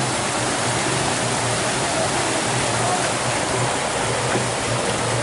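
Steady rush of flowing water, an even hiss with no distinct splashes.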